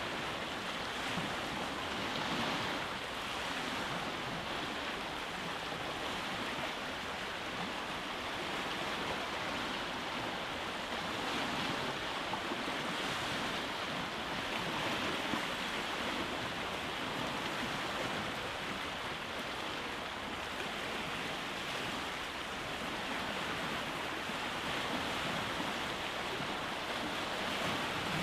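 Sea waves washing onto a rocky shore: a continuous rushing surf that swells gently and ebbs.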